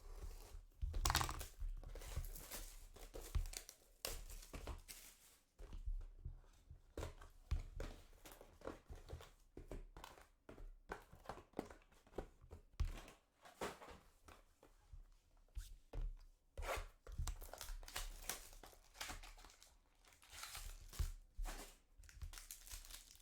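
Trading-card packs and their plastic wrapping being torn open and crinkled by hand, in a run of irregular tearing and rustling strokes.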